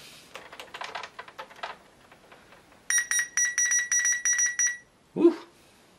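Laptop keyboard keys clicking as they are pressed, then the laptop's internal speaker beeping rapidly, about a dozen short beeps in two seconds. The laptop is stopped at a boot configuration error message.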